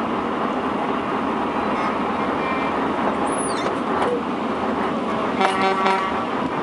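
Steady engine and road noise of a truck crawling along in a slow convoy. About five and a half seconds in, a vehicle horn gives a short toot that stands out over it.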